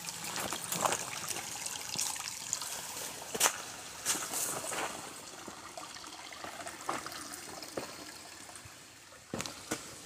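Shallow creek water trickling over flat rocks, with scattered sharp clicks and scuffs throughout, the loudest about three and a half seconds in.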